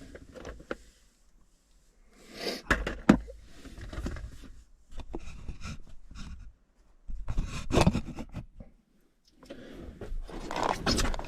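Wires, connectors and plastic parts being handled: several spells of scraping and rustling with sharp clicks, broken by short pauses.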